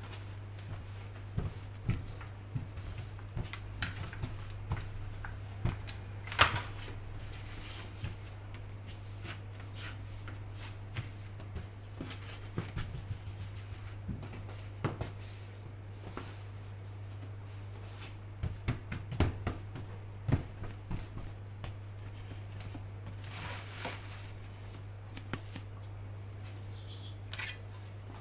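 Scattered light taps, clicks and knocks of hands shaping patongko dough on a work surface, a few sharper knocks standing out, over a steady low hum.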